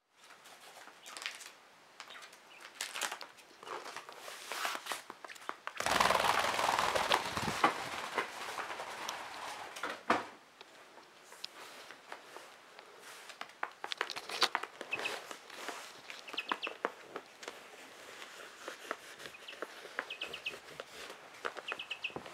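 Young quail and shamo chicks moving about on a wooden floor: scattered light taps and rustling, with a louder stretch of rustling about six seconds in. In the second half come short quick peeps in threes and fours.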